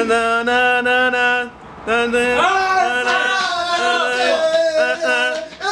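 A man singing a melody without words, a blindfolded hummed 'na-na' rendition of an electronic dance track. He holds long steady notes for about a second and a half, breaks briefly, then sings a second phrase of notes stepping up and down.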